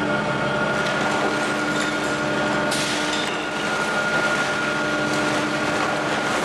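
Rear-loader garbage truck running with the engine raised to power its hydraulics as the tailgate and body tilt up to tip the load: steady mechanical noise with a high steady whine over it.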